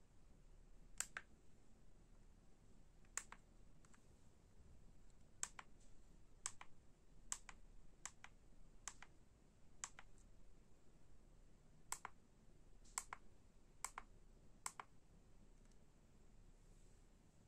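Faint clicks of the push buttons on an ADF-550E auto-darkening welding filter cartridge, pressed one at a time about a dozen times at uneven intervals to step through its sensitivity, shade and delay settings.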